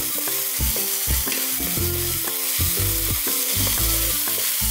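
Shrimp and vegetable fried rice sizzling steadily in a frying pan as a wooden spatula stirs and scrapes it. This is the mixing stage, once the soy sauce has caught and scorched onto the pan.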